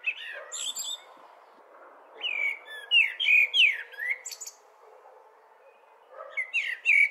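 Birds chirping in short spells of quick rising and falling whistled notes, over a steady background hiss.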